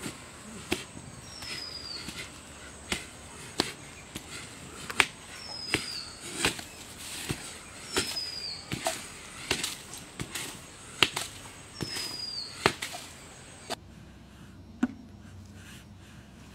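Irregular sharp knocks and taps, roughly one or two a second, with a bird's short falling whistle repeated four times. The knocks and whistles stop about three seconds before the end, leaving a quiet hum.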